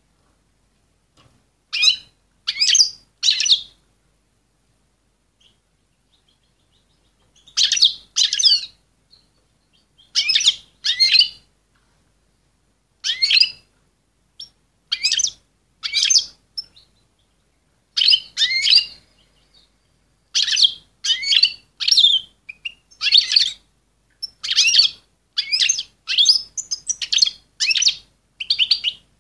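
A female European goldfinch calling in breeding condition: short, bright call notes in clusters of two or three, spaced by pauses at first and coming faster and nearly continuous in the last third. Breeders use such calls to bring male goldfinches into breeding condition.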